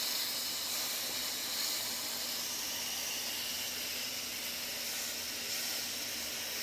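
Chicken breast sizzling in a ridged grill pan: a steady hiss.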